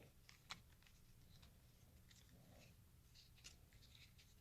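Faint, scattered plastic clicks of a Rubik's cube being turned by hand, over near silence.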